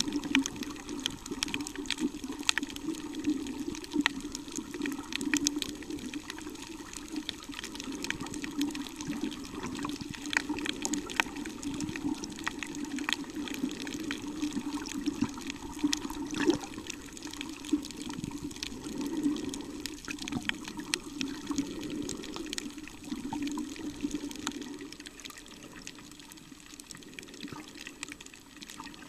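Underwater sound picked up by a camera below the surface: a steady muffled wash of moving water with frequent sharp crackling clicks, growing quieter near the end.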